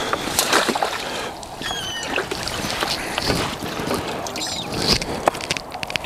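Water splashing and dripping, with scattered clicks and knocks from handling tackle. A brief high chirp sounds about two seconds in and a wavering high call around four and a half seconds in.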